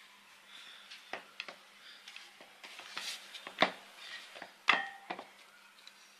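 Kitchen utensils and a bowl clinking and knocking during food preparation: a series of light taps, with two louder knocks about three and a half and almost five seconds in, the second ringing briefly.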